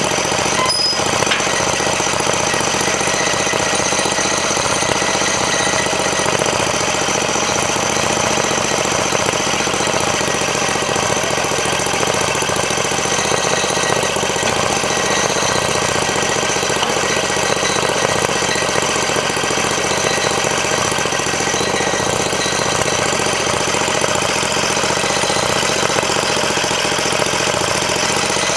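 Portable sawmill running steadily, its engine and saw making a constant mechanical din.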